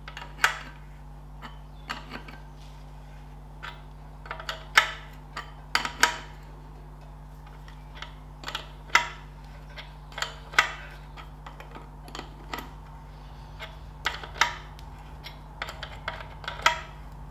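An open-ended steel spanner clicking and clinking on the head of an oil filter canister's centre bolt as it is swung and refitted a bit at a time to tighten the bolt. The sharp metal clicks come irregularly, about one or two a second, over a steady low hum.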